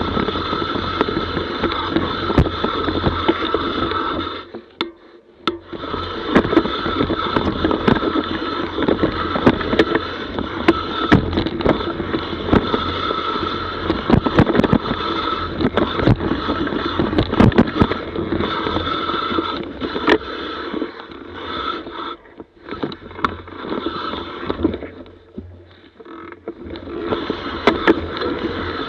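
Mountain bike rolling down a muddy, rooty forest trail: steady tyre and drivetrain noise with frequent knocks and rattles from bumps, dropping away briefly a few times.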